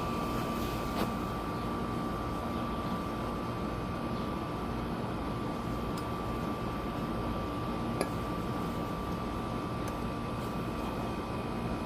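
A steady background hum with a thin constant whine, and two light clicks, one about a second in and one about eight seconds in.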